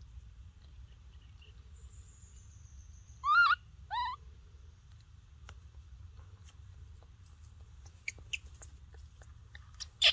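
Two short, high-pitched animal calls about a second apart, each rising then falling in pitch, over a faint steady background hum. Light clicks and rustles follow, with a sharp click near the end.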